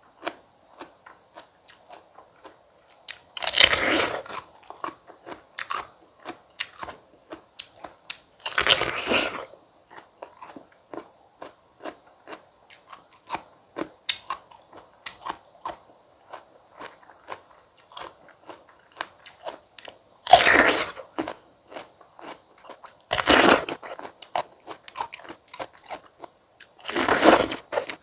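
A person biting into firm fresh fruit and chewing close to the microphone: five loud, crunchy bites, each about a second long, with soft wet chewing clicks in between.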